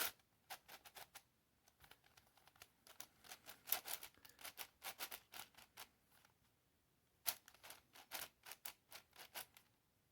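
Irregular clicking and clacking of a 3D-printed PLA twisty puzzle, a Radiolarian 5, as its layers are turned by hand, with a lull of about a second just past the middle. The turns catch and stick, a known trait of this puzzle.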